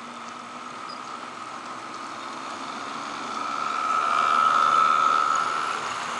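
HO scale model Erie FA and B diesel units running past close by, their motors and gearing giving a steady whine. The whine grows louder, peaks about four to five seconds in as the locomotives go by, then eases as the freight cars follow.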